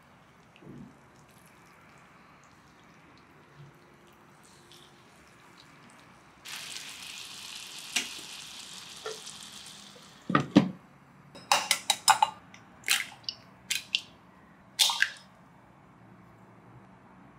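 Water running in a steady stream for a few seconds, then a series of sharp knocks and cracks in small clusters as eggs are rapped and broken open over a glass measuring jug.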